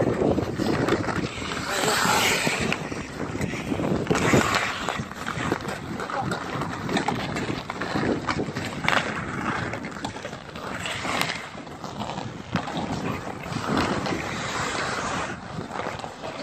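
Ice hockey skates scraping and carving across the ice, the hiss swelling and fading every few seconds, with frequent short clacks of sticks on ice and puck. Wind buffets the microphone.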